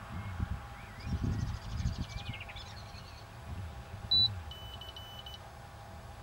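Electronic beeps: one short, loud beep about four seconds in, then a quick run of about four fainter, lower beeps. Earlier, wind rumbles on the microphone and a bird trills.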